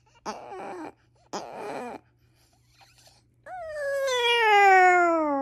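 Small dog vocalizing close to the microphone: two short rough yowls, then a long whining howl that slides steadily down in pitch.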